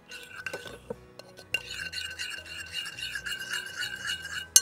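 A spoon stirring and scraping a thick chilli marinade around a bowl, with small clicks as it knocks the sides, over quiet background music.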